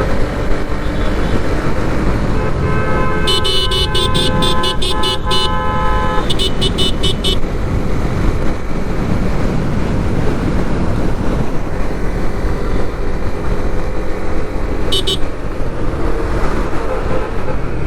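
Steady engine, wind and road noise of a motorcycle riding in highway traffic. A vehicle horn blares for about three and a half seconds a few seconds in, over a run of rapid high-pitched beeps, and a short burst of high beeps comes again near the end.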